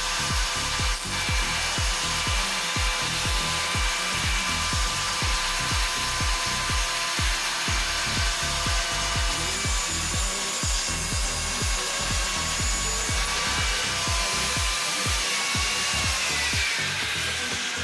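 Electric angle grinder running and grinding steel, its motor whine steady, then winding down in pitch near the end as it is switched off. Background music with a steady beat plays underneath.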